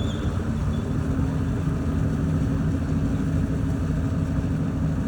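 Engines of a river passenger launch running steadily at speed: a low, even drone that holds one pitch.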